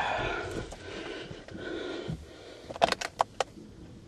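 A man breathing hard, with two heavy, panting breaths from the strain of pushing a car by hand. These are followed, about three seconds in, by a quick run of four or five sharp clicks.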